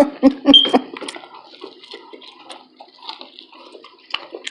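About four short voiced huffs in quick succession in the first second, reacting to a tongue burning from spicy sauce, then close-miked wet chewing and mouth noises from eating corn on the cob.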